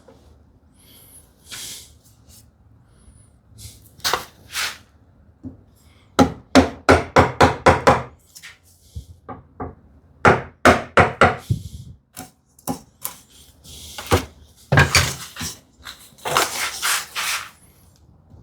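Handsaw cutting wood: short, quick strokes of about four a second, in three runs with pauses between.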